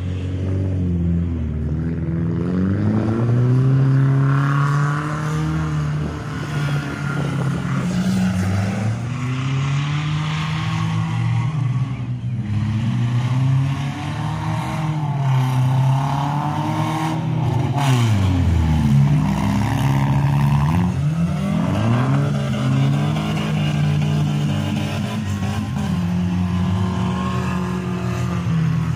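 Demolition derby car engines revving hard, their pitch climbing and dropping over and over as the cars accelerate and back off.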